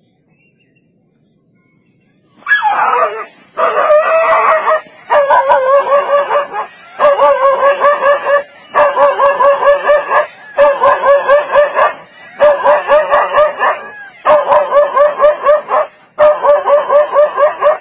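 A dog giving rapid, warbling barks in repeated bursts of about a second and a half each, nine in a row with short pauses, starting a couple of seconds in; it is barking at a leopard that faces it.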